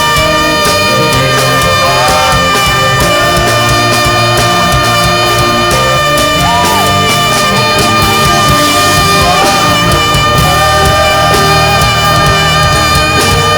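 Saxophone playing held, wavering melody notes with pitch slides over a loud, steady live band backing in gospel worship music.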